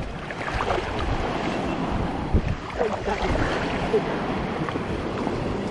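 Wind buffeting the microphone over water sloshing around a kayak being launched, with a single knock about two and a half seconds in.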